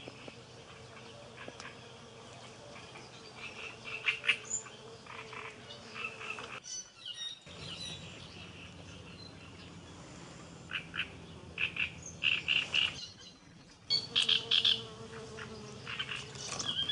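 Frogs calling in clusters of short, repeated calls over a faint steady hum of insects, typical pondside ambience; the sound drops out briefly twice.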